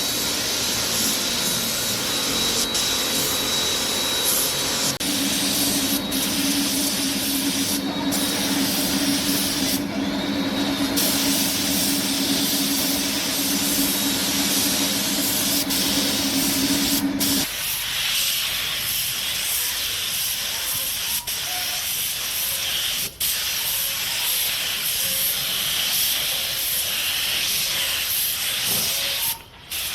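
Paint spray gun hissing steadily while spraying epoxy primer, broken by a few short cuts. A steady low hum runs under it through the middle and stops abruptly.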